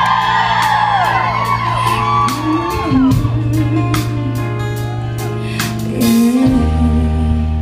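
Closing sustained chords of a live pop ballad, the bass note dropping lower near the end, under an audience's screams, whoops and cheering.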